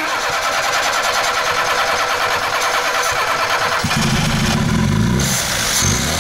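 VAZ 2121 Niva's carburettor four-cylinder engine being cranked on the starter for about four seconds, then catching and running.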